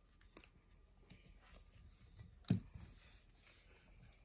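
Faint rustling and small clicks of origami paper being folded by hand, with one dull thump about two and a half seconds in.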